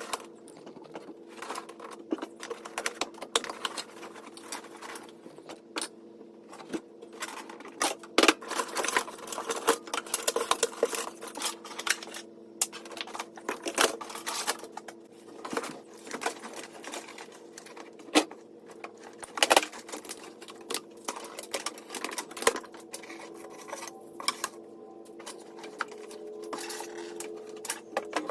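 Rapid, irregular clicks, knocks and rattles of hand tools and wiring being worked loose inside a Volkswagen Beetle, over a steady low hum.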